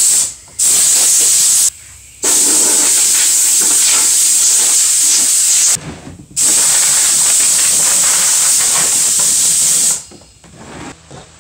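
Compressed-air blow gun hissing in three trigger-pulled blasts, the longest about four seconds, blowing soot and char dust off torched pallet wood; the air stops about ten seconds in.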